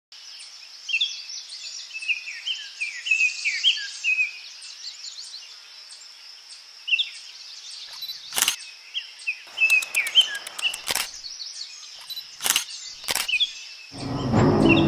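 Birds chirping and calling over a steady high hiss, broken by a few sharp clicks in the second half; music comes in near the end.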